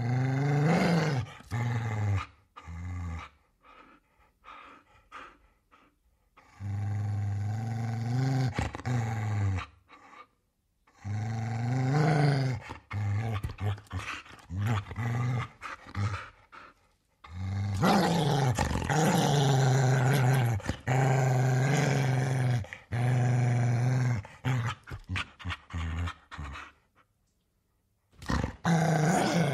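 Large dog growling angrily: a series of deep, throaty growls, some held for several seconds, with snarling rises in pitch and short pauses between them.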